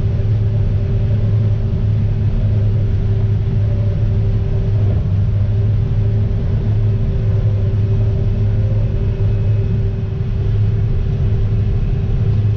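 John Deere 9500 Maximizer combine running steadily while harvesting wheat, heard from inside the cab: a constant deep drone of the diesel engine and threshing machinery with a steady hum above it.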